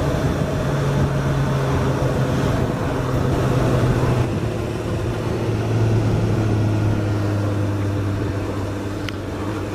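Suzuki GSX-S1000's inline-four engine running steadily at road speed, heard from on board the bike over wind noise. About four seconds in the engine note settles to a lower steady pitch.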